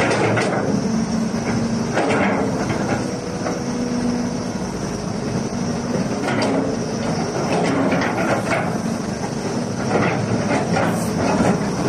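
CAT 320D hydraulic excavator running with its diesel engine at a steady pitch, with irregular metallic clanks and knocks every second or two.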